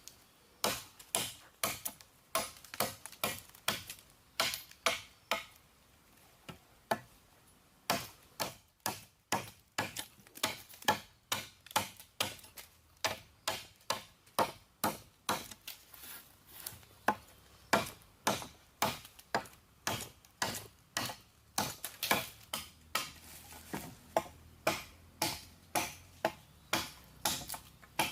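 Rapid, even series of sharp knocks, about two to three a second, typical of a tool striking wood over and over, with a pause of about three seconds partway through.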